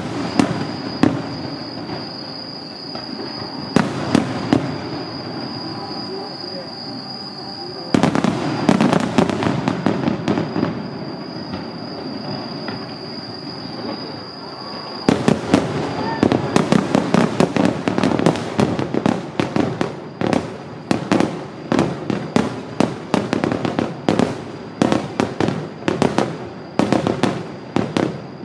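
Aerial fireworks shells bursting in a display: scattered booms at first, a denser run of bangs and crackle about eight seconds in, then from about fifteen seconds a rapid barrage of many bangs a second. A thin steady high-pitched tone runs under the first half.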